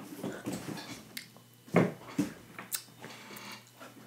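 A person chewing a sour yellow Lemonhead candy: irregular crunching and wet mouth noises, with one louder sound nearly two seconds in.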